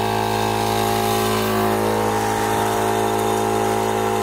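A motor running steadily, a constant droning hum that holds one pitch without revving.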